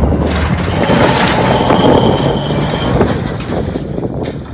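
Old pickup truck's engine revving hard under load as it climbs out of a dirt ditch, the tyres spinning and spraying dirt and gravel. The noise eases off near the end.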